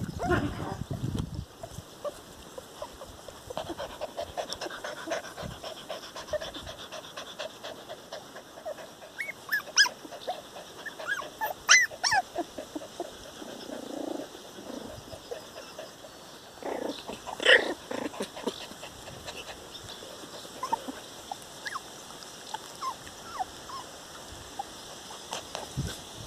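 Young puppies playing, letting out short high squeaks and whimpering yelps every few seconds, the loudest about two-thirds of the way through.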